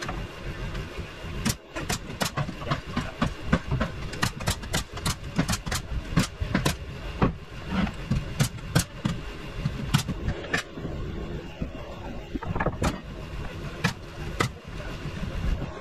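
Irregular sharp knocks of framing work on wood studs, often several a second, consistent with nails being driven into the lumber of a window opening. A steady low engine rumble runs underneath.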